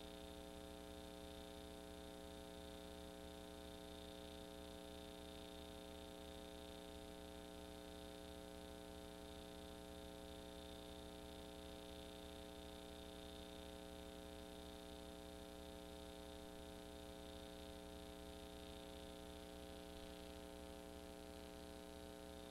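Near silence: a steady low electrical hum with faint hiss, unchanging throughout, and no sound of the horses or vehicles.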